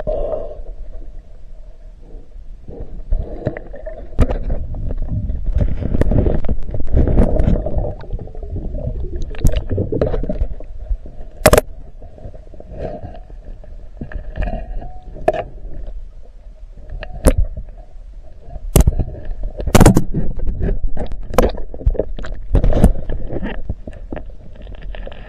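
Underwater sound heard through a camera's waterproof housing: a muffled water rumble and gurgle, with about a dozen sharp knocks and clicks as a diver works a serrated knife at a plastic bag fouled around a yacht's propeller.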